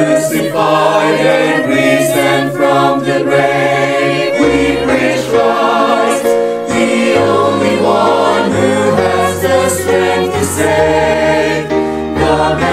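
Church choir singing a Christian worship song in parts, with held low bass notes underneath that change every second or two.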